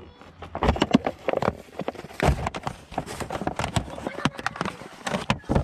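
Rapid, irregular clicks and clacks of small hard parts and packaging being handled, as a new door hinge pin kit is sorted through.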